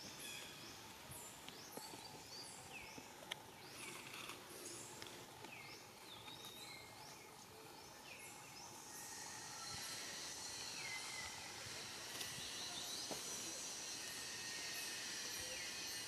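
Forest ambience: short, high chirps that slide downward, repeating about twice a second. About nine seconds in, a steady high-pitched hiss joins them and grows slightly louder.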